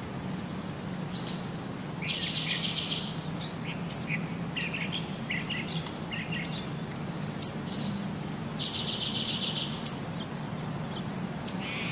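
Bird-like chirping: sharp high chirps about once a second, and twice a fast trill lasting about a second, over a low steady hum.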